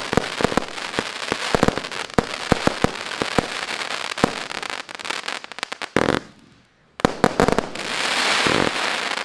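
200-shot 0.8-inch fireworks cake battery (MC149 'Blue Night Bonfire') firing: rapid bangs over a continuous crackling hiss. The sound cuts out for about a second around six seconds in, then resumes with more crackle and bangs.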